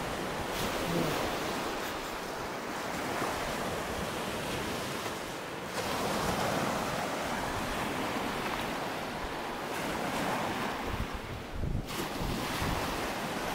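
Sea surf washing onto a sandy shore in steady swells, with wind buffeting the microphone in gusts near the end.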